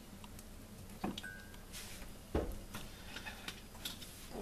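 Pot of liquid simmering faintly on the stove, with two light knocks, the louder about two seconds in.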